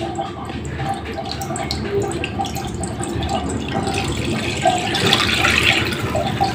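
Chicken stock poured from a glass jug into a wide frying pan, splashing steadily as the pan fills, a little louder and brighter in the second half.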